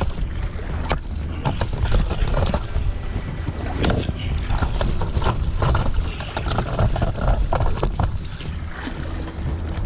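Wind buffeting the microphone in a heavy low rumble, with irregular knocks and scuffs of handling as the camera is carried over jetty rocks.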